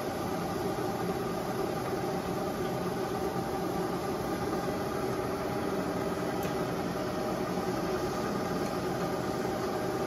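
1941 Monarch 12CK engine lathe running under power, a steady machine hum carrying several steady tones from its headstock gearing and drive.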